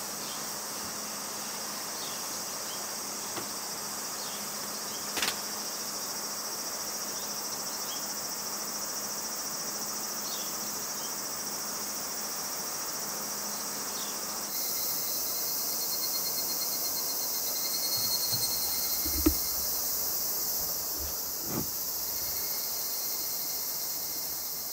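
Crickets and other insects trilling steadily in a high chorus, whose pitch shifts about halfway through. A few short light knocks come through, the loudest about three-quarters of the way in.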